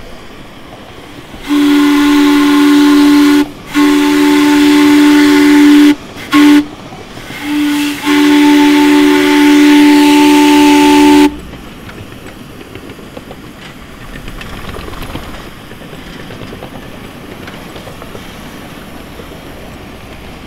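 Steam whistle on a 7.5-inch gauge live steam Alco-style 4-8-4 Northern locomotive, several notes sounding together. It blows two long blasts, a short one and a final long one, the pattern whistled for a road crossing. Then the engine's quieter steady running sound follows.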